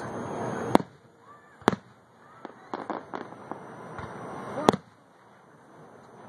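Aerial firework shells bursting overhead: three sharp booms, about a second in, near two seconds and a loud one near five seconds, with a scatter of smaller crackling pops between them.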